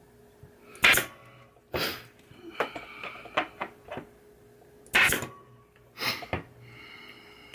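Pneumatic staple gun fired twice, each sharp shot followed about a second later by a short hiss of air, with light clicks of handling between them as staples fasten the wiring harness to a pinball playfield.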